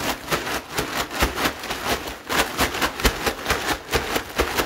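Handling noise on a phone microphone: rough rubbing and scraping strokes, about four a second, as cloth brushes against the phone while it is moved.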